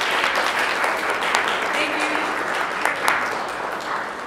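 Audience applauding, a dense patter of many hands clapping that begins to thin out near the end.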